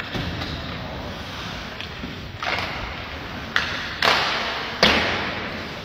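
Ice hockey play in an empty, echoing rink: four sharp cracks of stick, puck and boards in the second half, each ringing on in the hall, the last the loudest.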